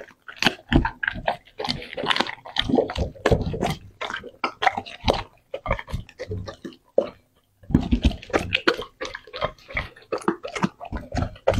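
Doberman eating raw meat off a plate: wet licking, lapping and chewing in quick irregular smacks, with a short pause about six seconds in before it resumes.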